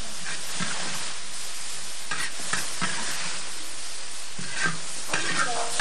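A stir-fry of mushrooms and garlic chives sizzling steadily in a large wok, with a metal spatula scraping and knocking against the wok several times as it is stirred.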